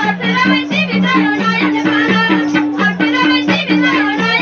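Nepali Teej folk song over loudspeakers: a woman singing with gliding, ornamented pitch over a drum beating a steady alternating low-high pattern, with a rattling percussion.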